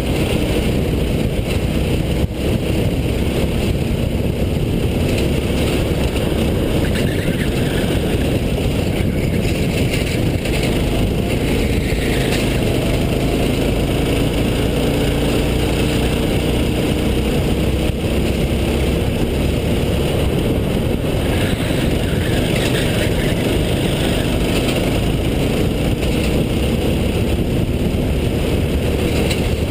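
Go-kart engine heard from on board, running continuously under racing load. Its pitch falls and rises as the kart slows for corners and speeds up again.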